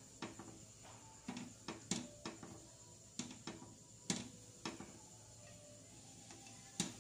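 Plastic spatula tapping and scraping against a nonstick frying pan while shaping an egg omelet: about ten short, sharp knocks at uneven intervals, the loudest about two, four and near seven seconds in.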